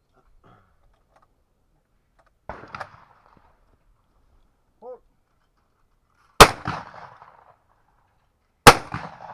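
Shotgun firing two shots at a pair of clay targets, about two seconds apart, each with a short echo trailing off. A brief shouted call comes about a second and a half before the first shot.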